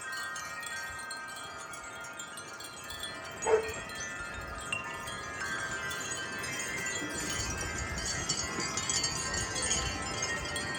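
Wind chimes ringing continuously in gusty wind, many metal tones overlapping, with a brief louder sound about three and a half seconds in. In the second half the ringing grows busier as low wind rumble rises.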